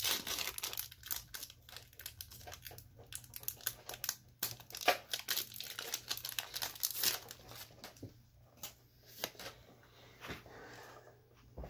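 Foil wrapper of a Pokémon TCG Battle Styles booster pack crinkling as it is torn open and the cards pulled out, with a dense run of sharp crackles. After about eight seconds it thins to a few quieter rustles and taps as the cards are handled.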